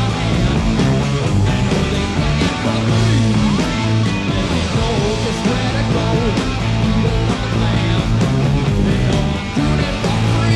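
Live hard-rock band playing: distorted electric guitar over bass and drums, loud and steady throughout.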